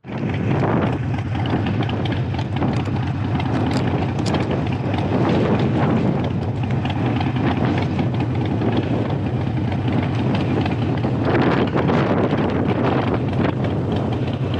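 Harley-Davidson Sportster 883 Iron's air-cooled V-twin engine running at a steady cruise while riding, with wind buffeting the microphone.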